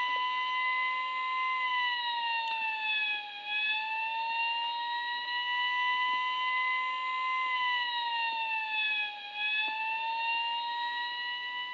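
Driven Standard Series toy fire truck's electronic siren sounding: a steady wail that slowly dips in pitch and rises back, twice.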